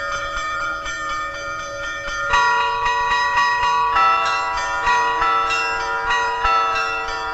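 Bells rung in succession on the soundtrack, each stroke ringing on under the next, a new one about every second or so, growing fuller about two seconds in.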